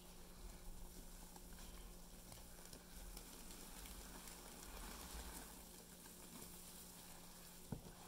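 A sponge loaded with Pinalen cleaner and Comet scouring powder being squeezed and kneaded by hand: faint wet squishing with a fizzing crackle of foam and paste, and a brief sharp tick near the end.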